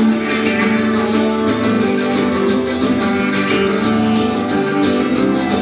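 A band playing a guitar-driven passage with strummed acoustic guitars and no singing.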